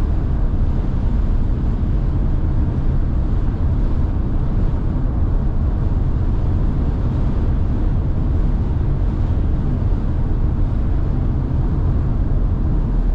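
Steady low rumble of tyre and wind noise inside a Tesla Model Y's cabin while it drives on a very windy day.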